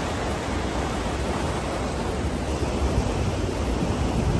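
Fast river water rushing over rocks as white water, a steady noise, with wind buffeting the microphone.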